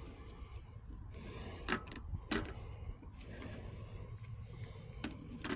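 Eggs being gathered by hand from straw nest boxes into a wire egg basket: a few sharp clicks and taps as eggs and basket are handled, over a low steady rumble.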